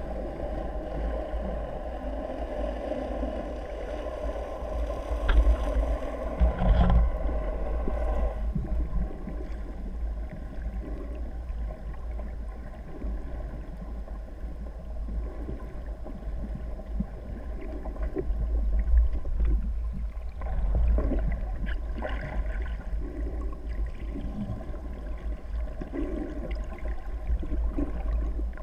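Underwater ambience: a steady, muffled low rumble of water, with a boat engine's drone heard through the water for the first several seconds, fading out about eight seconds in. Scattered faint clicks and knocks follow.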